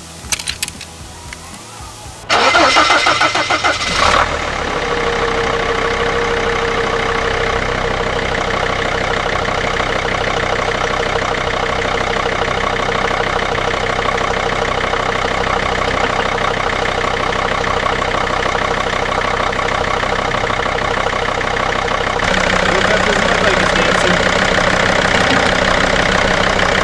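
A Sprinter's 2.7-litre five-cylinder diesel is cranked and catches about two seconds in, then settles into a steady idle. It gets louder and fuller from about 22 seconds in.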